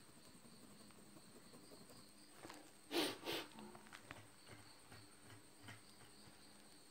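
Faint handling of drawing paper and pencil: two short rustling scrapes close together about three seconds in, then a few light taps, over a faint steady high-pitched hum.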